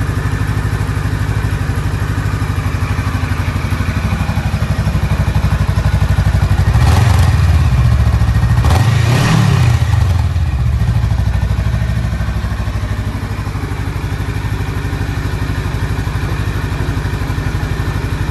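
Honda Rebel CMX500's parallel-twin engine idling through its stock exhaust, with two short throttle blips about seven and nine seconds in.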